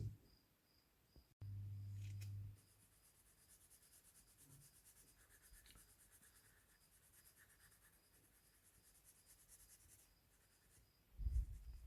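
Faint pencil scratching on paper in quick, even sketching strokes. A low hum sounds for about a second near the start, and a couple of low bumps come near the end.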